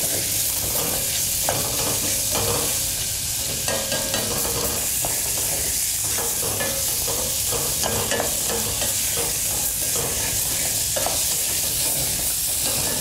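Pork fillet trimmings and carrot scraps sizzling steadily in fat in a stainless steel pot as they brown, stirred with a wooden spoon that scrapes and knocks against the pot now and then.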